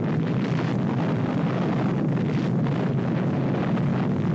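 Steady, deep rumbling roar of an atomic bomb blast, the long rumble that follows the explosion.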